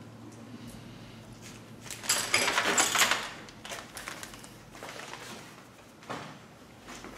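A rattling clatter of tools and metal parts being handled, lasting about a second starting about two seconds in, with a few lighter knocks and clicks around it.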